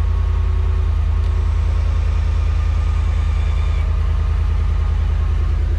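Cadillac Escalade's 6.2-litre V8 idling, a steady low rumble heard from underneath the truck.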